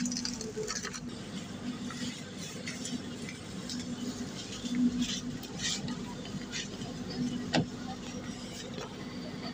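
Steady hum inside a passenger train carriage, with scattered light clicks and rattles and two sharper knocks about five and seven and a half seconds in.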